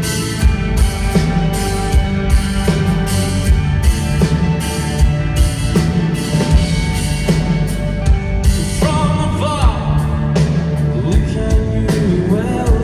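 Rock band playing live through a venue PA: a steady drum-kit beat under guitars and bass, with a voice singing at times.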